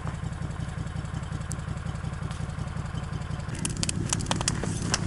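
A vehicle engine idling steadily as it warms up after a cold start. From about three and a half seconds in, a quick run of sharp clicks and crunches is heard over it.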